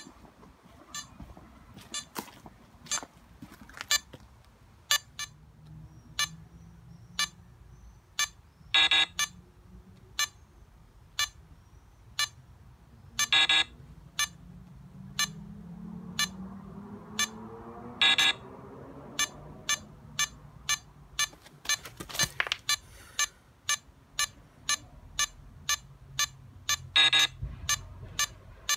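Countdown-timer app on a phone strapped to a prop time bomb, beeping in short, regular ticks about once a second as it counts down, with a few longer, louder beeps now and then.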